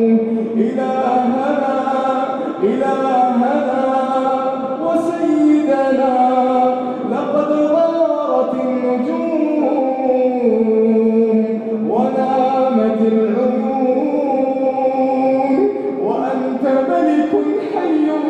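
A man chanting an Arabic supplication (dua) in a slow, melodic voice with no instruments, holding long notes that step and glide from one pitch to the next.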